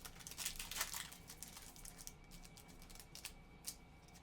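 Trading-card pack wrapper crinkling and tearing open in the first second, followed by scattered light clicks and taps as the cards are handled.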